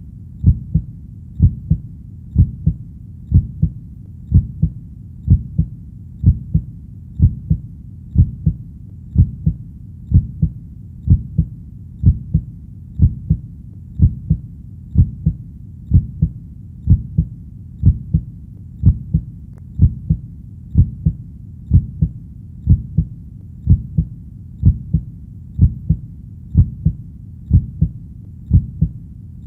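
A heartbeat beating steadily at a little over one beat a second. Each beat is a low double thump, lub-dub.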